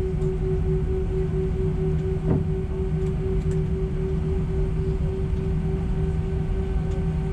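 Airbus A319 cabin noise on the ground after landing: a steady low rumble of the engines and air conditioning with a steady humming tone, and a single faint knock about two seconds in.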